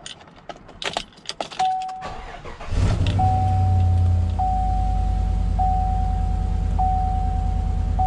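Keys rattling at the ignition of a 2016 Chevrolet Silverado, then its engine starting about three seconds in and settling into a steady idle. Over it, a dashboard warning chime sounds as a steady tone repeated about once a second.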